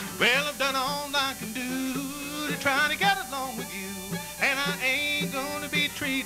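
Bluegrass band playing an instrumental break between verses: a fiddle leads with sliding, wavering notes over strummed acoustic guitar and upright bass.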